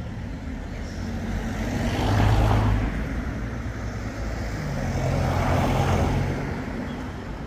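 Two motor vehicles pass by one after the other over steady traffic noise. The first is loudest about two seconds in, the second about six seconds in.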